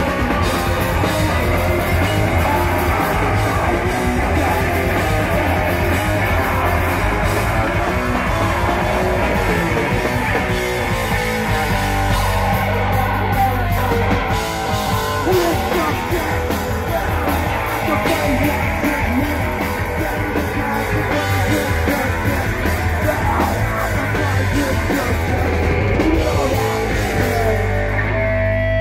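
Hardcore punk band playing live and loud: distorted electric guitar, bass guitar and drum kit, with a singer shouting into a handheld mic.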